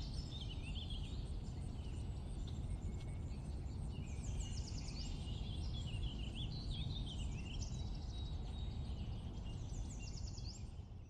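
Birds chirping and trilling, with quick runs of falling notes, over a steady low outdoor rumble; it all fades out near the end.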